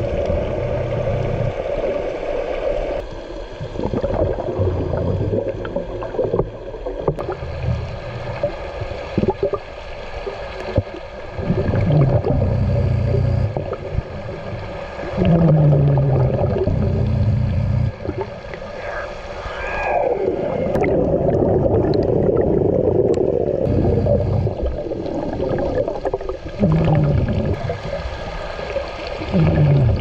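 Diver breathing through a regulator underwater: bubbling exhalations and low groans that fall in pitch, several times, over a steady hum.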